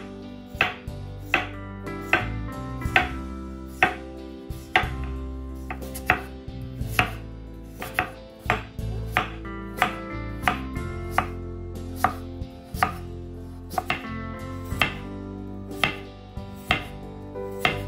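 Knife chopping food on a cutting board in slow, even strokes, a little more than one a second.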